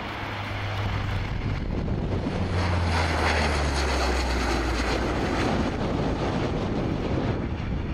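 Lockheed C-130H Hercules making a low pass, its four Allison T56 turboprops and propellers droning. The propeller tone drops in pitch as the aircraft goes by, loudest about three seconds in, with wind rumbling on the microphone.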